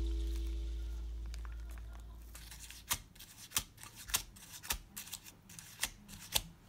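Background music fading out over the first two seconds or so, then a string of light, sharp taps about every half second as fingers tap at batter-filled paper cups in a muffin tin to knock the air bubbles out of the batter.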